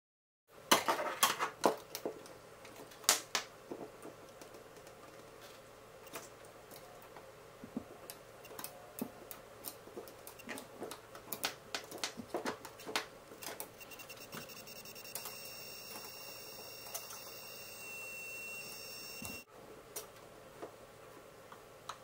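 Fiberglass glow rod (fish tape) being worked through a small drilled hole in a wall: irregular clicks, taps and scraping as the rod rubs and knocks against the hole's edges, busiest in the first few seconds.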